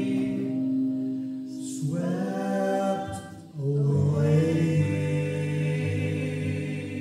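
Live band playing a song: voices singing long held notes together over guitar, with short breaks for breath about two and three and a half seconds in, fading toward the end.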